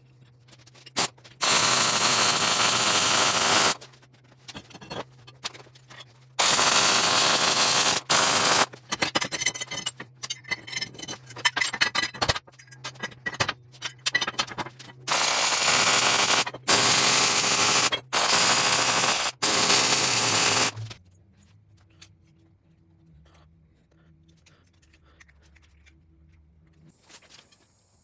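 MIG welder laying welds on a bolt held against a steel plate: a string of loud, steady arc-crackle bursts, each lasting from about half a second to two and a half seconds, over a steady low hum. The welding stops about three-quarters of the way through.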